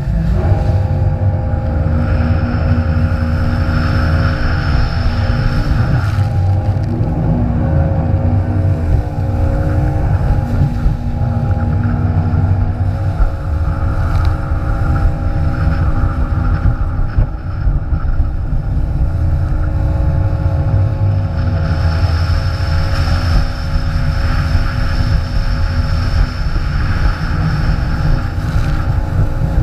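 Jet ski engine running steadily at speed, with heavy wind rumble on the microphone and water spray. A faint high whine comes and goes twice.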